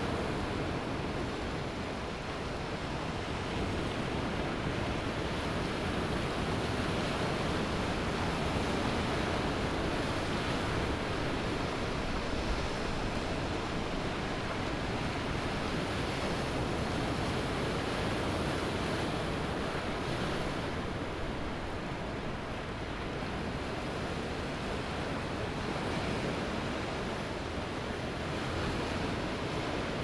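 Ocean surf on a sandy beach: a continuous rush of breaking and washing waves that slowly swells and eases, with no single sharp crash standing out.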